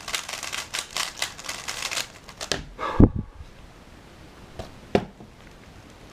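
Speedcube being turned quickly: a fast run of plastic clicks for about two and a half seconds, then two solid knocks, the loudest about three seconds in and a second about two seconds later.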